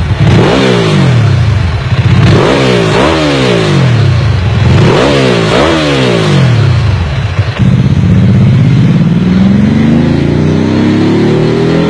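Ducati 999 superbike's L-twin engine being revved hard: several quick throttle blips that rise and fall sharply, then a long, steady climb in revs over the last few seconds.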